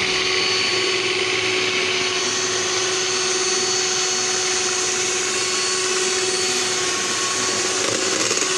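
Electric hand mixer running at a steady speed, its twin beaters whisking a thin cream-and-milk mixture in a bowl; an even motor whine with no change in pitch.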